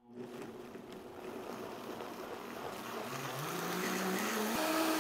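Vitamix blender motor starting up and blending roasted butternut squash chunks and broth into a smooth soup, growing louder as the speed is turned up, its pitch stepping higher about three seconds in and again near the end.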